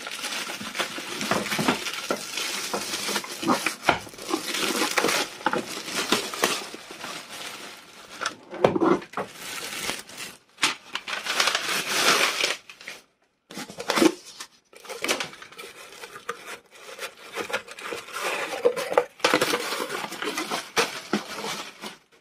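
Clear plastic film wrapping crinkling and rustling in stop-start handfuls as it is pulled off a mini deep fat fryer, mixed with knocks and clinks of the fryer's plastic lid and metal pot being handled as the lid is opened and a cardboard insert is lifted out.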